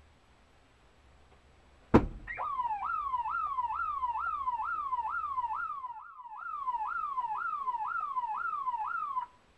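A single sharp bang about two seconds in, then a car alarm wailing in fast repeated sweeps, each jumping up and sliding down, about two and a half a second. It dips briefly midway and stops abruptly just before the end.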